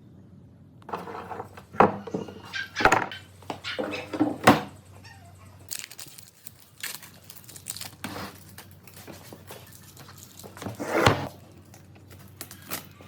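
Irregular handling noise: knocks and short scrapes, starting about a second in, with the loudest knocks about 2, 3 and 4.5 seconds in and a longer scrape near 11 seconds.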